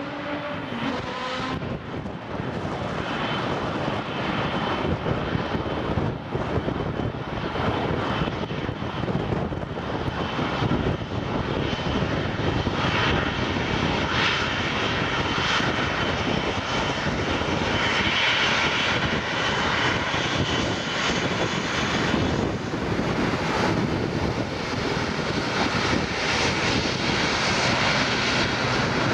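Twin Rolls-Royce Trent 700 turbofans of an Airbus A330-300 airliner running as it moves along the ground toward departure, a steady jet rumble and whine that grows louder as the plane comes nearer.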